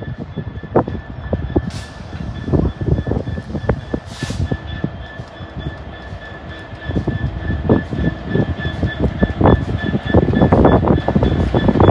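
A train running along the track, its wheels knocking irregularly over rail joints, getting louder in the last few seconds, with a steady high whine throughout and two short hisses about two and four seconds in.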